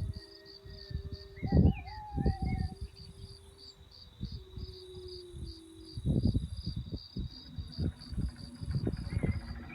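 Crickets chirping evenly at about three chirps a second over a steady high whine, likely part of a Halloween sound-effect playback. Irregular low rumbles and a few long wavering, sliding tones come in over the chirping.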